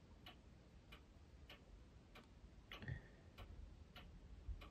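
Near silence with a faint, even ticking, about three ticks every two seconds, and a small click with a brief squeak about three seconds in as tweezers handle a tiny figure on the model deck.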